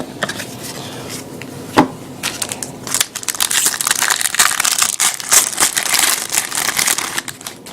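A jumbo pack of trading cards being torn open, its wrapper crinkling and crackling densely for several seconds after a single sharp tap about two seconds in.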